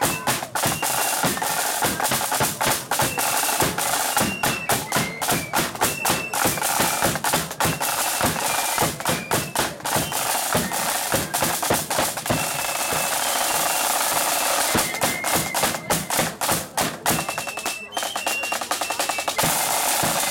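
Marching band playing: rapid side-drum beats and rolls with a bass drum, and a high melody of short held notes over the drumming.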